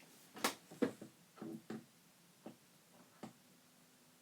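A handful of short, sharp clicks at irregular intervals, about six in all, from handling the Sansui 881 receiver's controls while it is switched on for a hum test.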